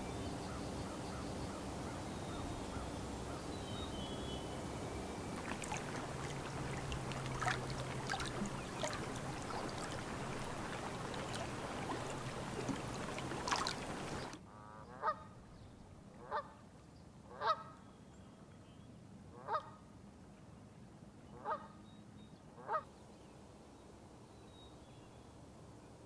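Canada geese honking: six loud, separate honks spread over the second half. Before them, a steady rushing background with faint chirps of small birds.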